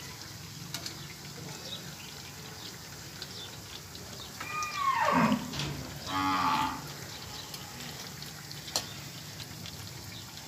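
A cow mooing twice a few seconds in: a long call that falls steeply in pitch, then a shorter second call.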